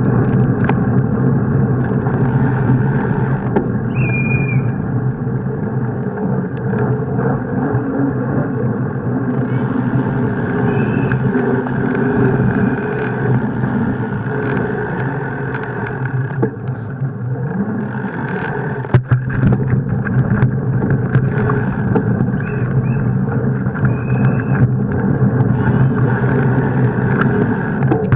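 Steady rumble and rattle of a mountain bike rolling along town streets, picked up by a camera mounted on the bike, with a few short faint squeaks.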